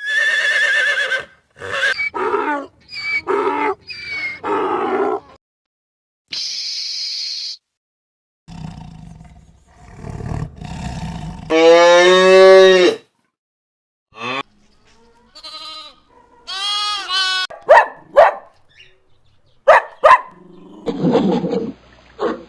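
A series of different animal calls, each a second or two long and cut one after another with short silences between, the loudest a long pitched call about halfway through.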